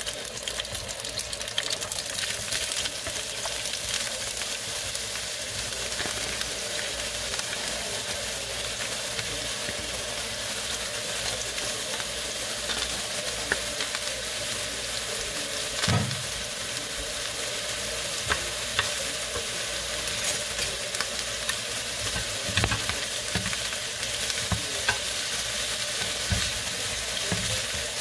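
Stir-frying in a nonstick frying pan: a steady sizzle of garlic in hot oil, then of a heap of julienned white vegetable being turned with a wooden spatula. Several knocks and scrapes of the spatula against the pan sound over the sizzle in the second half, the loudest about halfway through.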